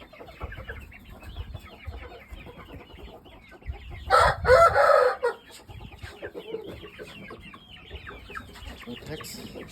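Chickens clucking and cheeping throughout, with one loud crow a little over a second long about four seconds in.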